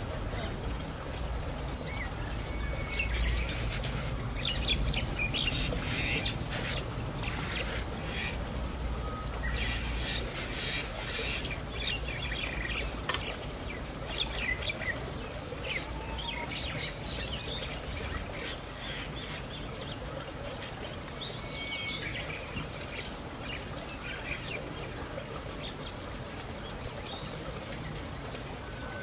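Small birds chirping and twittering repeatedly in the background, over a low rumble that fades out about two-thirds of the way through.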